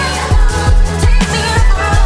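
Background pop music with a heavy kick drum on a steady beat, about two hits a second.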